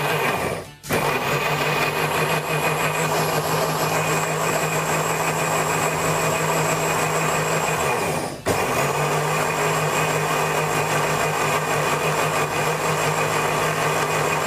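Countertop electric blender running steadily, blending a thick peach and ice-cream shake. The motor is switched off briefly twice, about a second in and again about eight seconds in, and starts again each time. The pauses are to let the ingredients mix.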